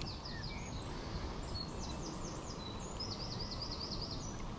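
A songbird singing: several runs of quick, high, down-slurred notes repeated in series, over a steady outdoor background hiss.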